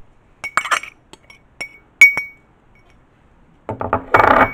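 White ceramic dishes clinking and being set down: a few sharp clinks with a short ring, the loudest about two seconds in, then a burst of clattering near the end.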